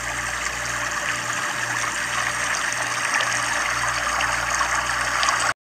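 Steady rushing noise like running water, with a faint low pulse about twice a second underneath; it cuts off suddenly near the end.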